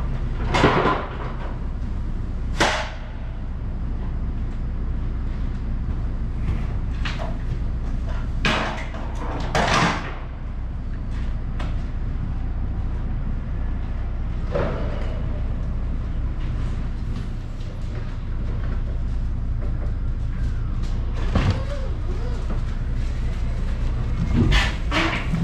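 Scattered knocks and clatters from unloading work in a curtainside truck trailer, a sharp knock every few seconds over a steady low hum. Near the end comes a quick cluster of clanks as a forklift carrying a pallet crosses the steel dock leveller.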